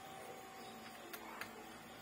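Quiet room tone: a faint steady hum with two light clicks a little after a second in.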